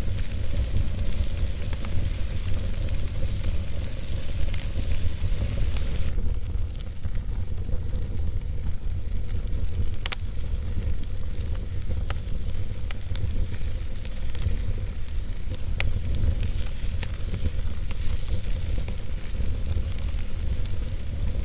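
Wood fire burning in a fireplace: a steady hiss over a low rumble, with scattered sharp crackles and pops. The hiss softens about six seconds in.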